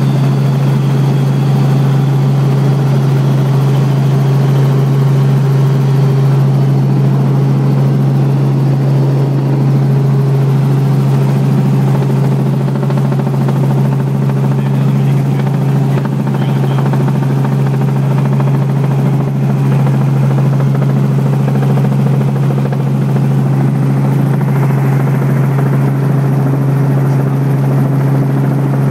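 Robinson R44 helicopter heard from inside the cabin while descending on approach to land: a loud, steady drone built on a constant low hum that holds one pitch.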